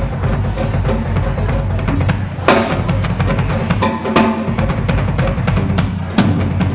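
Live drum-kit solo: dense, fast bass drum and tom patterns, with cymbal crashes about two and a half seconds in and again near the end.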